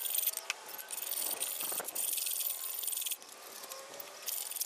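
A flat hand file rasping across the metal body of an old bench vice in long push strokes, a few in a row, each about a second, with short pauses between. It is taking rust and old paint back to bare metal.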